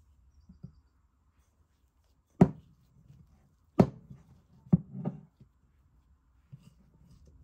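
Three sharp knocks on a hard surface, roughly a second apart, followed by a softer, duller thud.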